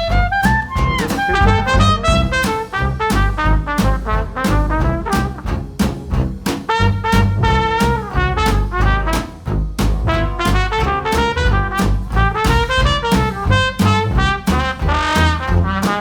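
Background music: an upbeat jazzy brass tune with trumpet and trombone over a steady swing beat.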